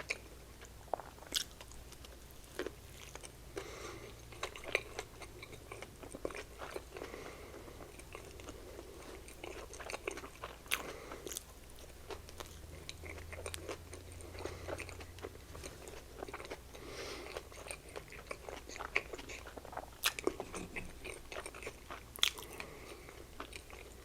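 Close-up chewing of small soft burgers (sliders), with wet mouth clicks and smacking sounds scattered throughout.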